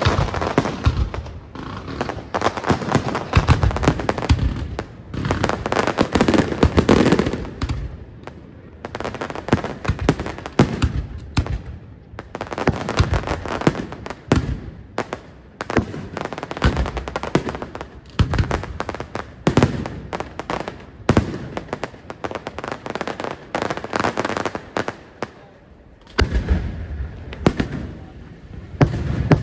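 Daytime fireworks display: shells bursting overhead with dense crackling and rapid bangs, coming in waves every few seconds, with heavier bangs near the end.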